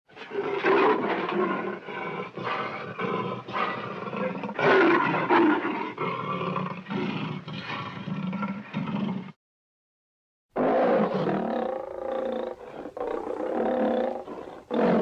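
A lion calling in two stretches of long, rough roars, with about a second of dead silence between them about nine seconds in.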